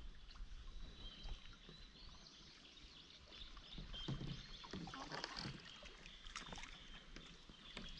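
Quiet lake sounds of paddling: faint kayak and paddleboard paddle strokes in calm water, with water dripping off the blades.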